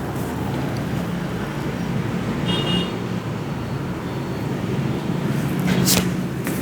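Steady road-traffic noise with a low engine hum, a brief high beep about two and a half seconds in, and a few sharp clicks near the end.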